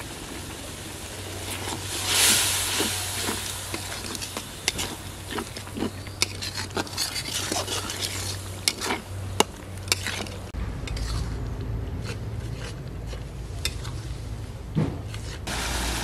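Metal spatula stirring and scraping spice paste frying in oil in a karahi, with many sharp clicks of the spatula against the pan and a burst of sizzling about two seconds in. After about ten seconds the clicks thin out and a steady low rumble takes over.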